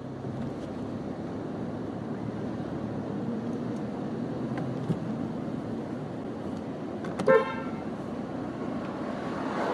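Steady road traffic noise around a car, with one short car horn toot about seven seconds in.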